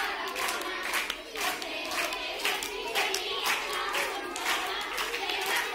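A group of women singing together while clapping their hands in a steady rhythm, about two claps a second, in a Punjabi group dance.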